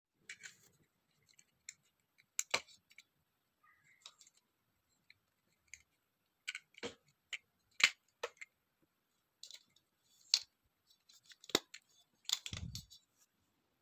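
Scattered sharp plastic clicks and taps from handling a folded tripod selfie stick and snapping its Bluetooth remote into the holder on a leg, with a duller thump near the end.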